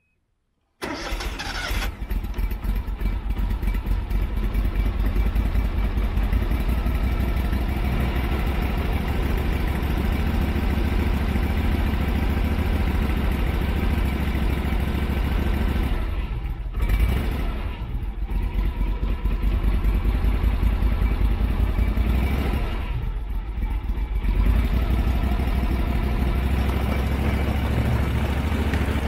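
Argo 6x6 amphibious ATV's engine running as it drives, with a dense low throb. The revs dip briefly twice, about halfway through and again about two-thirds of the way through.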